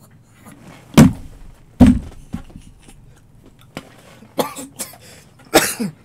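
A man coughing in fits of hard laughter, in short separate bursts. The two loudest come about one and two seconds in, with smaller ones near the end.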